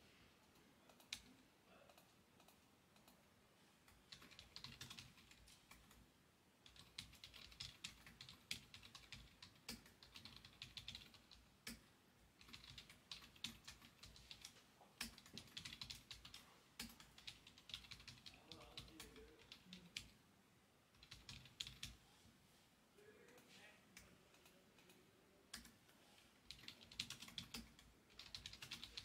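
Faint typing on a computer keyboard: runs of quick key clicks broken by short pauses.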